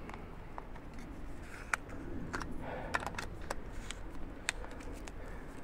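Footsteps of a walker on a dirt-and-stone trail covered in dry fallen leaves: irregular light clicks and scuffs.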